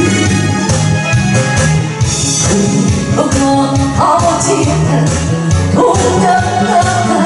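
Loud music with singing over an instrumental backing.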